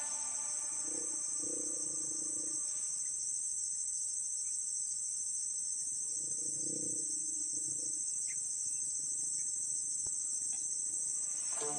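Steady high-pitched chorus of insects buzzing without a break.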